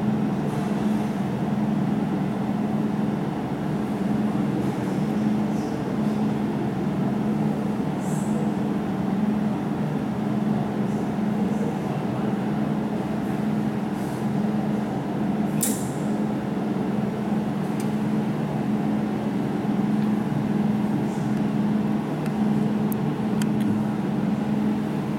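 Jewelry laser welding machine running with a steady hum, from its cooling fan or pump, with a few faint sharp clicks here and there.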